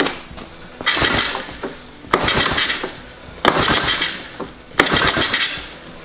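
ATV engine being pull-started by its recoil starter rope, four pulls about a second and a bit apart, each a short burst of the engine cranking over without catching yet. The carburetor has been primed with carburetor spray to see whether it will fire.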